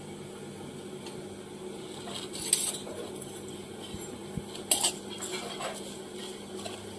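Steel spoon scraping and clinking against a kadhai as ground spices are stirred in oil. There is a scrape about two and a half seconds in, two sharp clinks near five seconds, then lighter scrapes.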